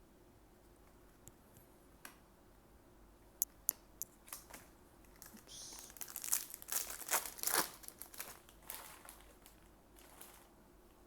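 A foil trading-card booster pack being torn open and its wrapper crinkled by hand, after a few sharp clicks. The crinkling is densest in the middle and fades out near the end.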